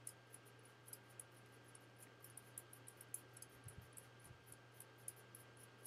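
Near silence: room tone with a steady low hum and faint scattered ticking.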